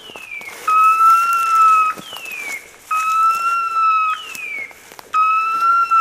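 Electronic beeper collar on a hunting dog sounding a repeating signal: a falling chirp followed by a steady high beep about a second and a half long, the pair repeating about every two seconds.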